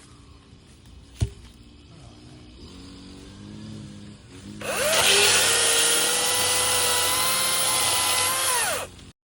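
EGO 16-inch battery-powered electric chainsaw: a sharp click about a second in, then the motor and chain spin up quickly to a steady high whine with a hiss, hold for about four seconds, and wind down falling in pitch when the trigger is released near the end.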